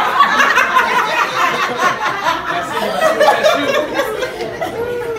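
A small group of people laughing and chattering, several voices overlapping.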